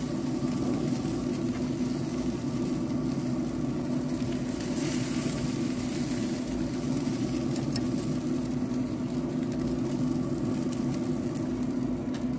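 Traeger pellet grill's fan running with a steady hum under the hiss of bacon-wrapped chicken thighs sizzling, with a couple of light clicks of metal tongs.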